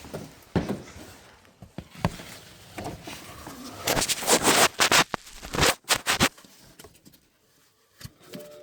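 Hands unplugging the ABS control unit's wiring connector: scattered plastic clicks and rustling, with a loud spell of scraping and rattling about four to six seconds in. A short steady tone sounds near the end.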